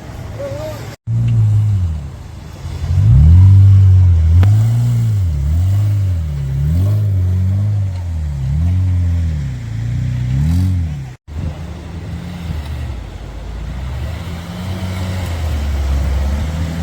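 Off-road 4x4's engine revving up and down over and over, about once a second, then settling to a lower running note with gentler rises. The sound cuts out for an instant twice.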